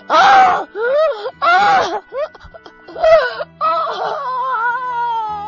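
A person wailing and moaning in pain: several short sliding cries, then a long drawn-out moan that slowly falls in pitch, over steady background music.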